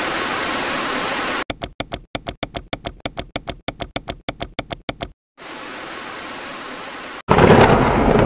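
Intro sound effects: TV static hiss for about a second and a half, then a quick run of keyboard-key clicks, about seven a second, for some three and a half seconds. A quieter hiss follows, and near the end a loud burst sets in and begins to fade.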